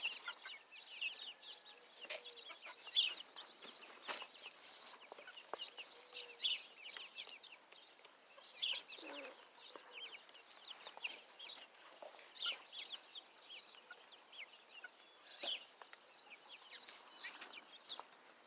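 Baby chicks peeping: a steady chorus of many short, high chirps overlapping one another.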